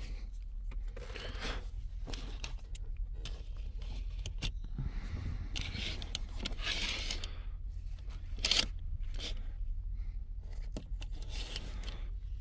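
Synthetic truck-cab curtains being pulled and handled by hand: cloth rustling and scraping in irregular bursts, heaviest around six to seven seconds in, with a sharp scrape about eight and a half seconds in. A low steady hum runs underneath.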